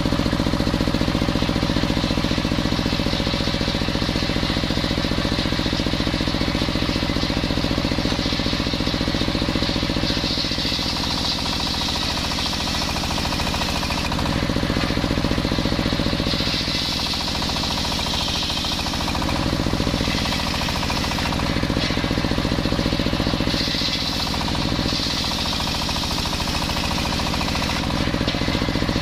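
Belt-driven table circular saw ripping a log of waru wood: the drive engine runs steadily with a rhythmic knock, and the blade's higher cutting sound swells and eases several times as the log is pushed through.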